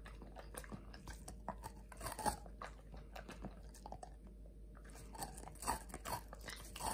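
Doberman biting and chewing a frozen strawberry ice pop: scattered wet, icy crunches and licks, with louder bites about two seconds in and near the end.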